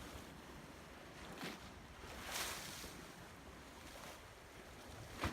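Small waves of lake water lapping and splashing in separate washes, with a sharper slap near the end.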